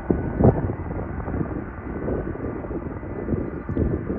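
Boeing 747-400 freighter's four jet engines running at taxi power: a steady distant whine with faint high tones under a rough rumble. Wind buffets the microphone in gusts, the strongest about half a second in.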